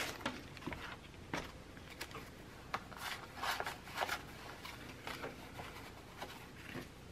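Paper banknotes, a stack of US twenty-dollar bills, rustling and flicking as they are handled and sorted by hand: an irregular string of short, soft paper crackles and brushes.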